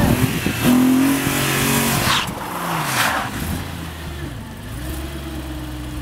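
BMW E90 M3's V8 engine held at raised revs as the car drives out of deep snow, with two short rushing noises about two and three seconds in. The revs then fall, and the engine settles into a steady idle near the end.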